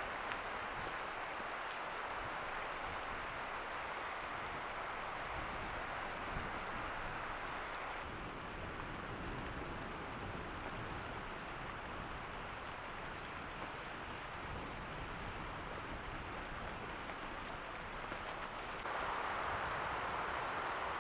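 Steady rushing of a stream flowing over stones, a little louder near the end.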